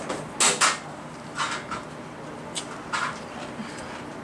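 A series of about six short, sharp knocks and scuffs from play during a game, the loudest near the start.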